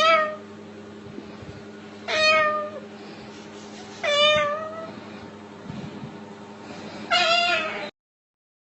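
A parrot mimicking a cat's meow, four drawn-out meows about two seconds apart, over a steady low hum. The sound cuts off shortly before the end.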